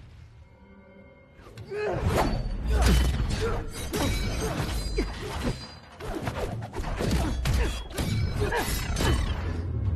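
Film fight sound effects: a quick run of staff blows, thuds and swishes over the film score. It is quieter for the first second and a half, then the blows come thick and fast.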